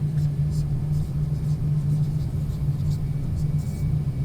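Steady low background hum with no change in pitch or level, with faint short ticks now and then.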